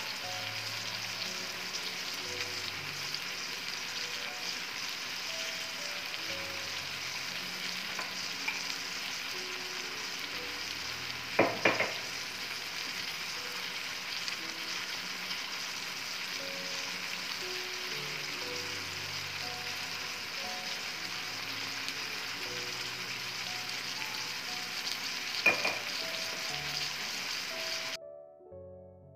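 Liver, onions and tomatoes frying in an aluminium pan, a steady sizzle, with two sharp metallic knocks about eleven seconds in and near the end. The sizzle cuts off suddenly just before the end.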